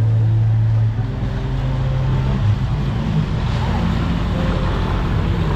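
A steady low engine hum close by, over busy street noise and people talking; the hum changes pitch about a second in.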